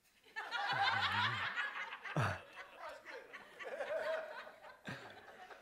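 Soft laughter, people chuckling, strongest in the first two seconds and then dying away into a few quieter chuckles.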